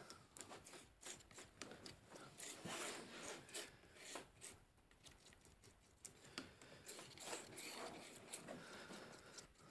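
Faint scraping and rubbing of a palette knife working thick linseed oil paint on a palette, with scattered light clicks.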